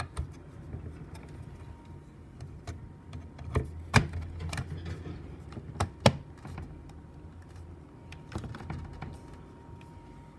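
Scattered sharp plastic clicks and snaps from a photoelectric smoke alarm's cover being handled and fitted back on. The loudest clicks come about four and six seconds in.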